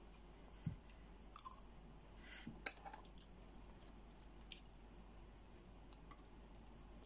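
Faint, scattered clicks and small cracks of cooked brown crab shell being picked apart, with the clink of a small fork against shell and plate. One sharper crack comes a little before the middle, after a soft low thump about a second in.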